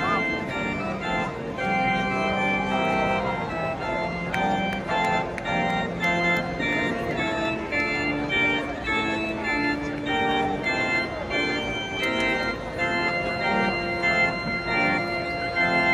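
Organ music: sustained chords that change every second or so, with faint crowd voices underneath.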